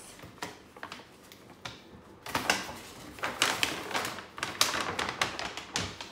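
Paper gift bag being handled: a few light clicks at first, then dense crinkling and rustling from about two seconds in.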